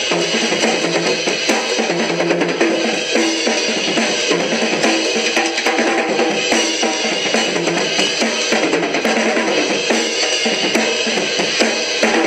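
Music track with a steady drum-kit beat of bass drum, snare and cymbal.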